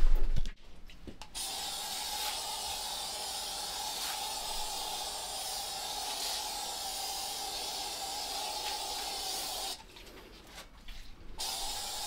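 Aerosol insect spray can hissing in one long steady spray of about eight seconds, stopping briefly, then spraying again near the end.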